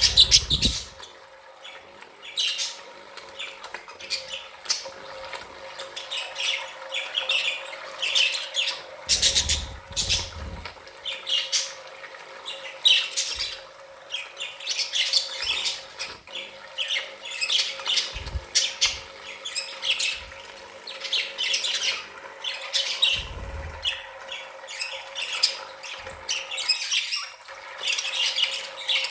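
A flock of budgerigars chattering, chirping and squawking without pause, over a faint steady hum, with a couple of brief low rumbles about ten seconds in and again near the end.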